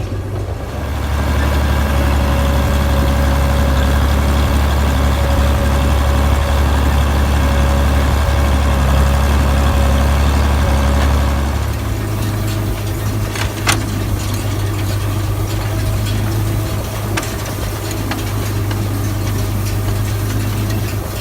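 Farm tractor engine running steadily. About twelve seconds in its note steps up, and a single sharp click follows a couple of seconds later.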